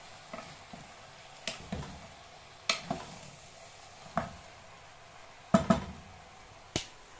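A spoon stirring fried vegetables and peas in a stainless steel pot, knocking sharply against the pot about nine times, some knocks in quick pairs, over a faint sizzle of the frying vegetables.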